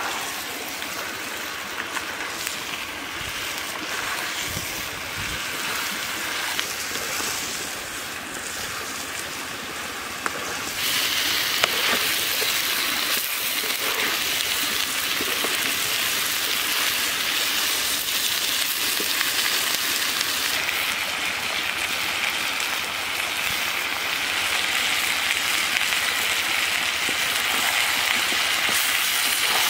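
Chicken legs and vegetables sizzling and frying in a blackened pan over a wood fire, a steady rain-like hiss that turns clearly louder and brighter about ten seconds in.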